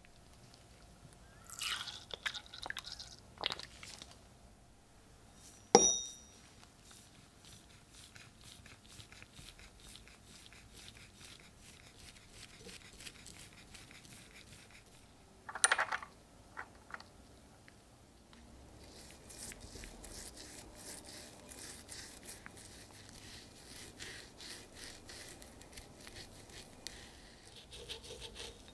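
A bristle brush scrubbing cold bluing solution onto the rust-pitted steel head of an old pickaxe: soft, fast scratchy brush strokes, thickening into a dense run of rapid strokes in the last third. A single sharp clink with a brief ring about six seconds in is the loudest sound, and a shorter knock follows near the middle.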